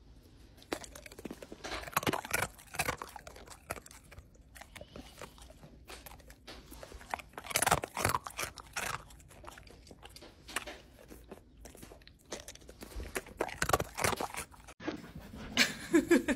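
A golden retriever crunching and chewing food right at the microphone: irregular crisp crunches coming in clusters. Near the end there is a short pitched sound.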